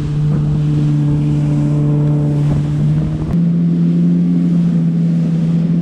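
Yamaha FX HO WaveRunner's four-cylinder four-stroke engine running steadily under way, a loud even drone, with wind buffeting the microphone. About three seconds in, the note steps up a little and the buffeting eases.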